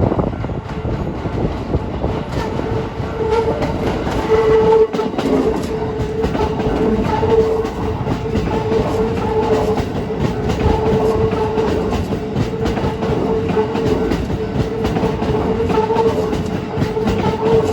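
Keikyu New 1000 series train passing over a level crossing, its wheels clacking over rail joints. A steady, repeating tone from the crossing's warning bell sounds throughout.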